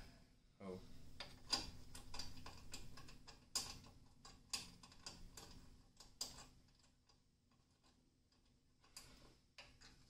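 Light scattered clicks and taps of metal parts being handled as a hood lock is fitted behind a Jeep TJ's grille, thickest in the first several seconds, then thinning out with a few more near the end.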